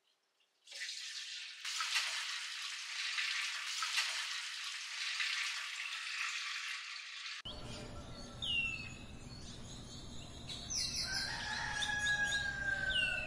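Milk pouring in a steady stream into a large metal pot for several seconds. Then it changes to birds chirping, with sweeping calls and one longer drawn-out call near the end.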